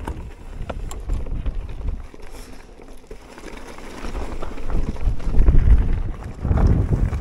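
Mountain bike rolling fast down a rocky gravel trail: tyres crunching over loose stones, with scattered small knocks and rattles from the bike. Wind buffets the microphone, swelling into a heavy rumble in the second half.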